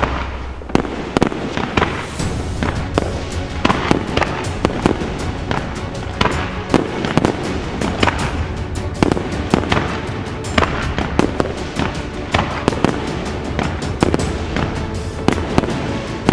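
Firework display: aerial shells bursting in quick succession, many sharp bangs and crackles, with music playing underneath.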